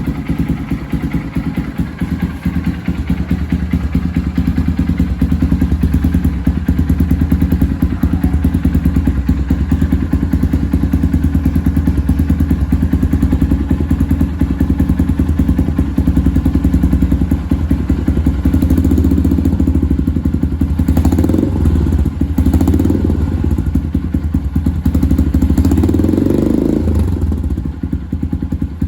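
Honda XR150L's single-cylinder four-stroke engine running through a Norifumi full aftermarket exhaust, idling steadily just after starting. In the last third it is given several short throttle blips, each a brief rise in pitch.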